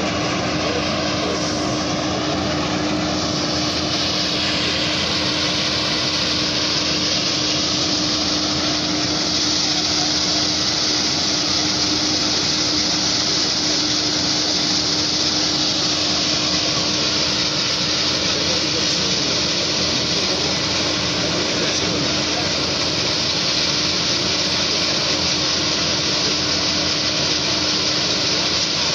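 Fire engines running at a large building fire: a steady rushing hiss over a constant hum, with no bangs.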